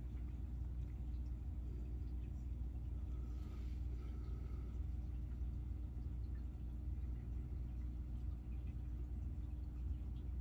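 Steady low rumble with a faint constant hum underneath, with no distinct event standing out.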